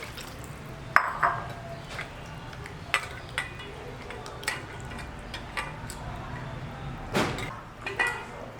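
Irregular clinks and knocks of a kitchen bowl and utensils as raw chicken pieces are handled for washing, about a dozen strikes, some ringing briefly; the loudest comes about a second in.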